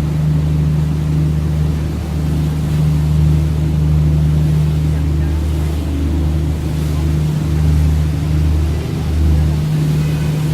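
Tour boat's engine running with a steady low drone, heard on board, with some water and wind noise over it.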